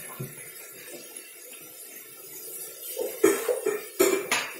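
A few short clattering knocks from kitchen items being handled, such as a seasoning grinder being set down, in a cluster about three to four seconds in, after a stretch of low steady hiss.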